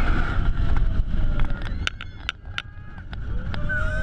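Bolliger & Mabillard steel hyper coaster train running, heard from onboard as track rumble and wind on the microphone. About halfway through it drops quieter, with a few sharp rattling clicks, and near the end the rumble builds again under a rising tone.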